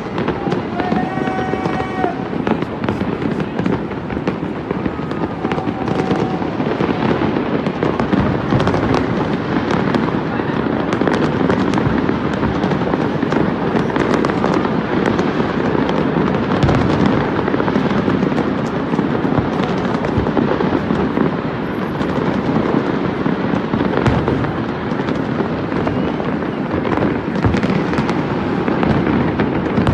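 Fireworks display: many aerial shells bursting in quick succession, a continuous dense mix of booms and crackle that never lets up.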